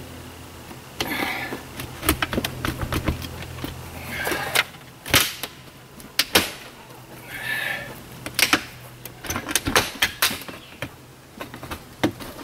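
A metal camper window frame being worked loose from its sticky sealant by hand: irregular sharp clicks and knocks of the frame against the camper wall, with a few short scraping passes.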